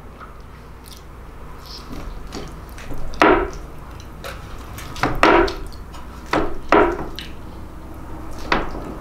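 A metal spatula and fork knocking and scraping against a tray of lasagna on a wooden cutting board while cutting and scooping portions, with about five sharp knocks and quieter scrapes between them.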